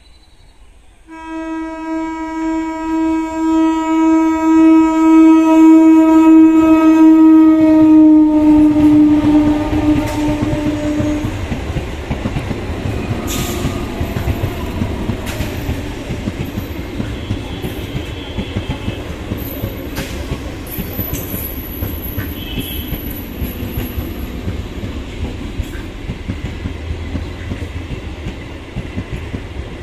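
Electric multiple-unit local train sounding one long horn for about ten seconds as it approaches, the pitch dropping as the cab passes. Then the rumble and clickety-clack of its coaches rolling past over the rail joints, with occasional sharp clicks.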